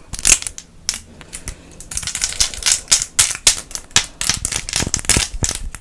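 Plastic pen caps worn on the fingertips as mock acrylic nails, tapped together in quick, irregular clicks close to the microphone.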